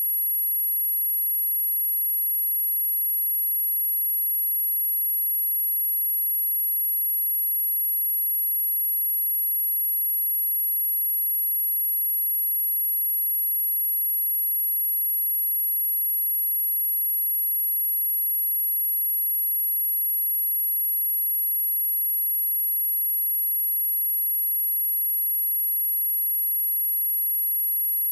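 A pure 11424 Hz sine-wave test tone, a single very high-pitched steady whistle held at constant level, used to test speakers and shake water and dust out of them.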